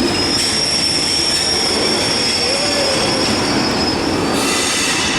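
A train moving over the rails with a steady high-pitched wheel squeal that starts just after the beginning and stops about four seconds in, over a continuous rumble of wheels and rail.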